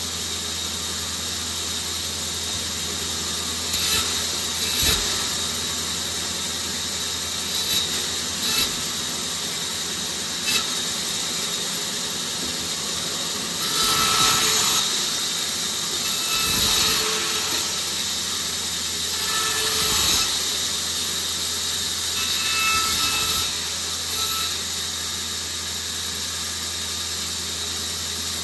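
Bandsaw running steadily with a low hum and a high steady tone, its blade ripping a bark-covered wooden pole lengthwise into strips. Short cuts come about 4, 8 and 10 seconds in, then several longer cutting passes through the middle, each one louder than the idling saw.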